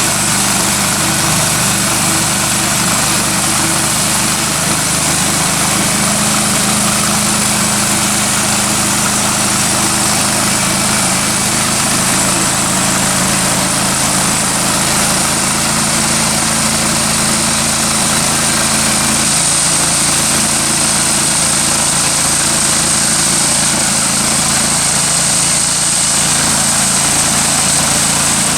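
Woodland Mills HM126 bandsaw mill's small gas engine running at a steady speed while the band blade saws through a log, with a steady hiss of the cut.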